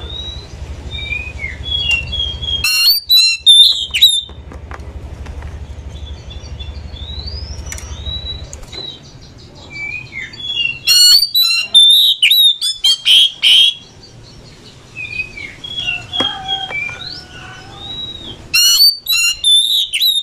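Oriental magpie-robin singing: varied whistled notes and slurs, broken by loud clusters of rapid, harsh chattering notes about 3 s in, in the middle, and again near the end. A low hum runs underneath for the first half.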